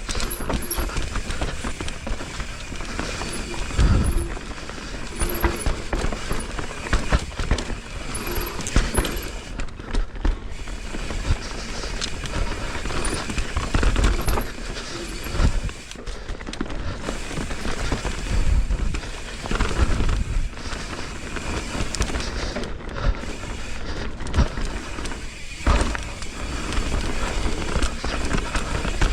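Mountain bike riding down a dirt trail: continuous tyre and rattling noise, with several heavy thumps as the bike hits bumps.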